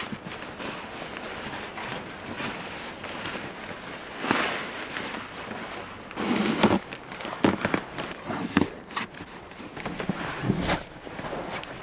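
Gear bags and dry bags rustling and being shifted around in a pickup's canopy-covered bed, with frequent knocks and thumps as things are moved. The loudest thumps come a little past halfway.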